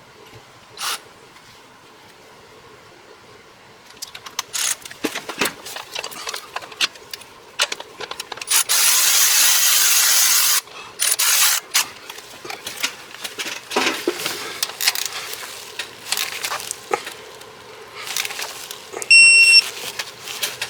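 Ratchet and wrench clicking as the belt tensioner bolt is run down, with a loud steady whir lasting about two seconds midway. Near the end comes a short electronic beep, the signal that the 30 N·m torque spec has been reached.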